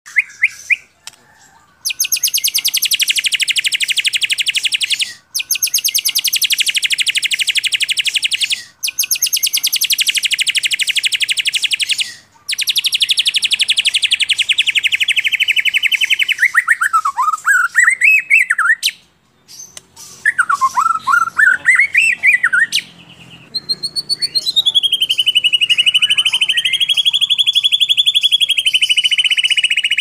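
Songbird song from a masteran, a tutor recording played to train white-rumped shamas. Four rapid, high trills of about three seconds each with short breaks come first, then two warbling phrases, then a long trembling whistle that slowly drops in pitch near the end.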